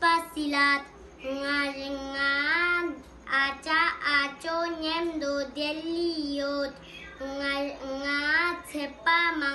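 A young boy singing solo and unaccompanied, in phrases of long held and gliding notes with short breaks for breath between them.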